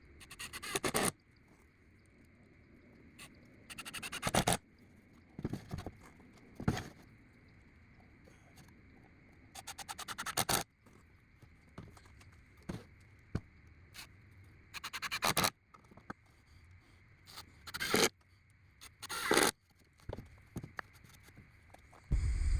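Cordless impact driver driving screws in a series of short bursts of a second or less each, each burst a fast rattle of clicks, with pauses between them.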